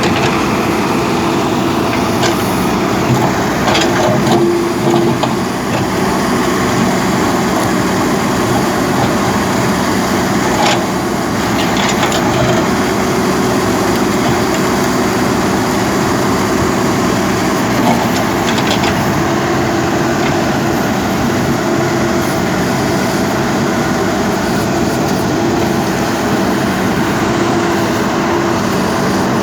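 JCB backhoe loader's diesel engine running steadily under work, with a few short knocks and clanks from time to time.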